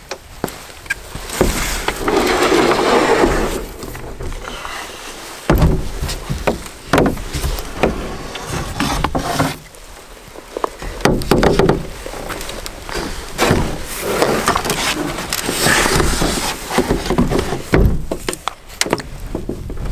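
Scattered wooden-sounding knocks and thumps as a paddler boards a Swift Keewaydin 15 solo pack canoe from a rocky shore: boots, gear and paddle bumping against the hull. Near the end come the first paddle strokes pushing off.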